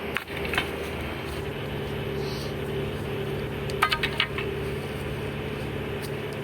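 A motor runs with a steady hum, and a few sharp clinks and knocks come through it: two near the start and a quick cluster of about four around four seconds in.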